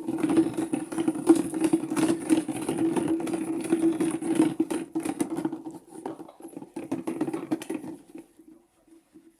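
Maytag washing machine running on its delicate cycle: a steady motor hum with a crackle of small clicks, which dies away about eight seconds in.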